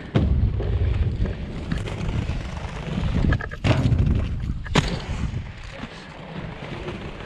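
Three-wheel inline skate wheels rolling over paving with a steady low rumble and wind on the microphone. Two sharp clacks about three and a half and five seconds in, as the skates land on and come off a wooden bench.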